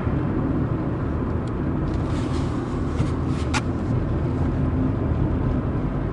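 Steady engine and tyre noise inside the cabin of a car driving along a paved road, with one brief click about three and a half seconds in.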